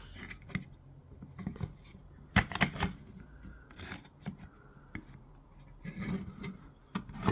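Sharp clicks and light scrapes of the MissChanger dock's parts as the rounded pins ride along the grooves while the part is pushed in and pulled out to test the fit, with two loud clicks close together about two and a half seconds in.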